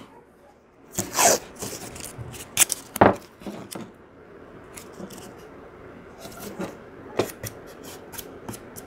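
Blue painter's tape being pulled off the roll and torn, then pressed and crinkled around the end of a casting-mold tube to seal it. There are two loud rips in the first three seconds, then softer crinkling and small clicks.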